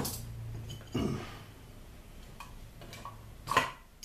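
A few sharp handling clicks and knocks, the loudest about three and a half seconds in, over a low steady hum from the running air-conditioner outdoor unit that fades about halfway through.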